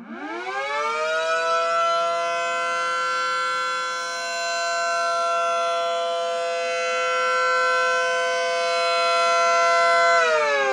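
3D-printed model of an ACA Allertor 125 siren winding up from a low pitch over about two seconds, then holding a steady chord of several tones at full pitch, and starting to wind down near the end.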